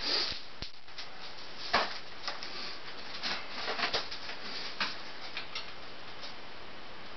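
Scattered light clicks and rustles of a person moving about on dry leaf litter, sitting down and handling equipment, with the sharpest click about two seconds in. A faint steady hiss lies underneath.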